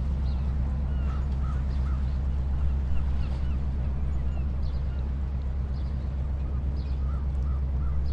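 Gulls calling repeatedly in short clusters of cries over a loud, steady low rumble.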